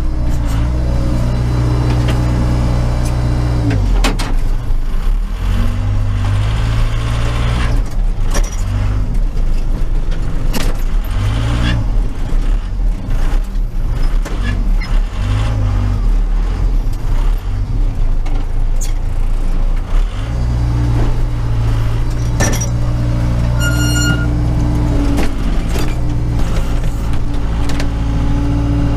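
Case 580 Super K backhoe's diesel engine heard from inside the cab, running steadily, then pulling down to a lower, uneven note for about sixteen seconds from about four seconds in while the backhoe works, before settling back to its steady note. Scattered clanks and rattles sound over it.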